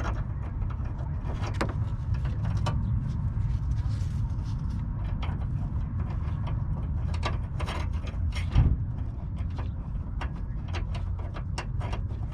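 Scattered clicks and knocks of hands working plastic car headlight parts over a steady low rumble, with one louder thump about eight and a half seconds in.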